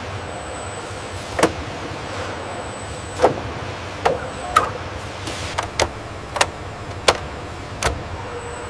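Car-factory assembly work: about nine sharp knocks and clicks, like parts being handled and fitted, come at irregular intervals over a steady factory hum.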